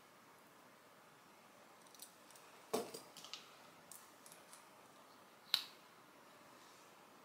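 Faint clicks and light taps of makeup tools being handled, among them a metal eyelash curler. The clicks come in a loose scatter from about two seconds in, with a louder knock a little before the three-second mark and a sharp click about five and a half seconds in.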